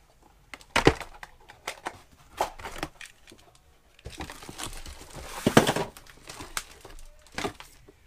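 Cardboard box and paper packaging being handled: rustling and crinkling as parts are lifted out, with a longer rustle from about four to six and a half seconds in. Several sharp clicks and knocks of plastic parts being handled are scattered throughout.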